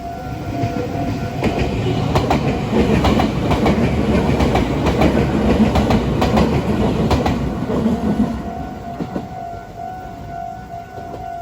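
A Meitetsu Inuyama Line train passing over a level crossing, wheels clattering over rail joints, loud from about a second in until near the end. The crossing's warning bell rings in a steady repeating tone at the start and again after the train has passed, drowned out while it goes by.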